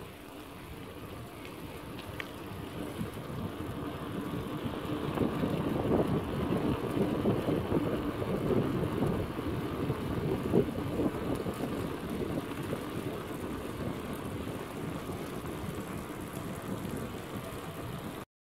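Rushing noise of riding a bicycle along a paved path: wind on a smartphone's microphone and tyres rolling. It swells louder for several seconds in the middle, then settles.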